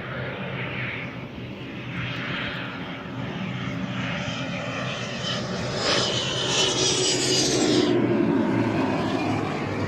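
A light aircraft's engine running with a steady low drone that grows louder. A brighter hiss joins about six seconds in and cuts off sharply about two seconds later.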